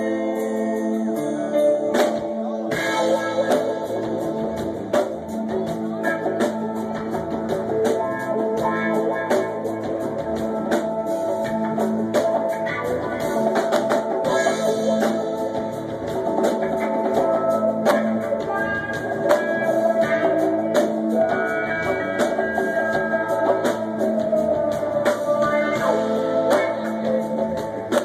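Live rock band playing: electric bass, guitar and drum kit, amplified through a stage PA.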